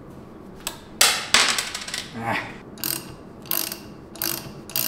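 Metal robot-arm joint mechanism being worked, making short mechanical rasping bursts that repeat about every half to two-thirds of a second from about a second in.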